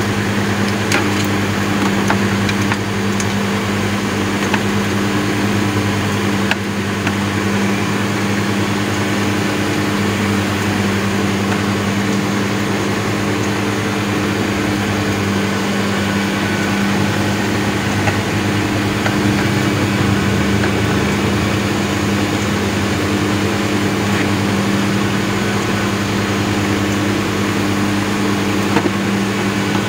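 An engine idling steadily, a low even hum, with a few faint clicks and taps from hand work on the air-conditioning housing.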